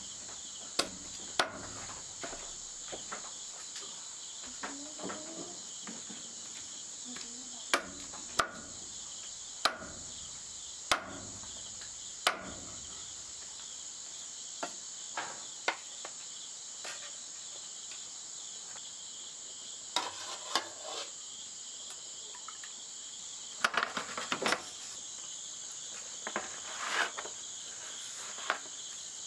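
Steady chorus of crickets and other insects, broken by irregular sharp knocks, some single and some in quick clusters.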